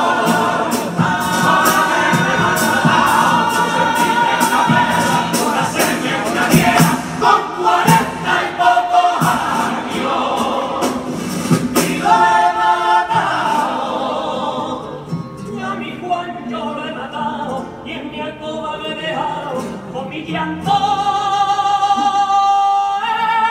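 A male carnival comparsa choir singing a song in Spanish in harmony, over strummed guitars, with a softer passage in the middle and a long held note near the end.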